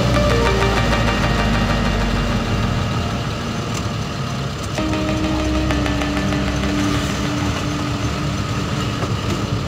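Truck engine running steadily while driving slowly, heard from inside the cab; its note shifts about halfway through.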